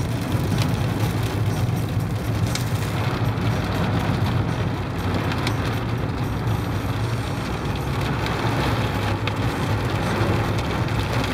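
Large hail and rain hitting a car's roof and windshield, heard from inside the cabin while driving, over steady engine and road noise. A few sharp clicks stand out of the steady noise.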